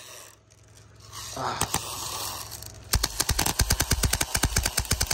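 Homemade 3D-printed airsoft BB marker firing in rapid strings of sharp clacks. The firing stops briefly, a short noise fills the pause, and then the rapid firing resumes about three seconds in.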